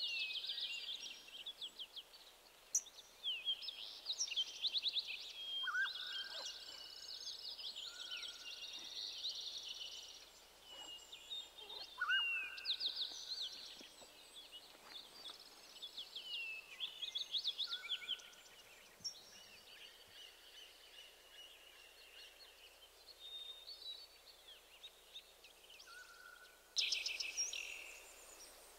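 Small wild birds chirping and twittering: many quick, high, gliding notes and short trills, with a few lower whistled notes now and then. A louder flurry of chirps comes near the end.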